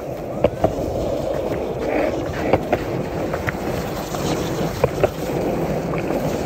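Skateboard wheels rolling on a concrete path, a steady rumble broken by a few sharp clicks.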